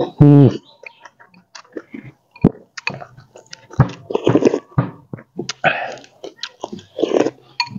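A person eating noodle soup: a loud slurp that falls in pitch at the start, then chewing with wet lip smacks and clicks, and a few short slurps of broth from a spoon.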